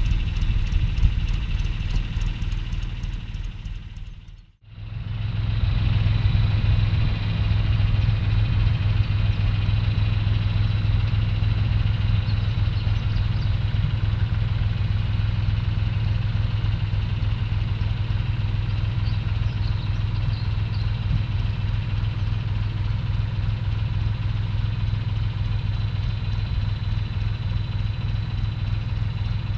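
John Deere tractor's diesel engine running steadily under load while pulling a potato planter. About four and a half seconds in, the sound fades and drops out for a moment, then comes back as a steady low-pitched engine hum.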